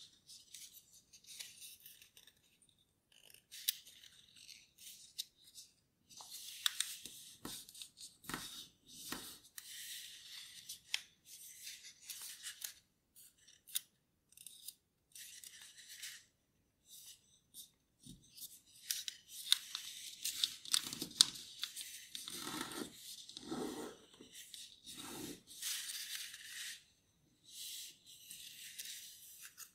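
A sheet of origami paper being folded and creased by hand: stop-start crinkling and rustling, with fingers rubbing and pressing the folds flat. It is busiest in the second half.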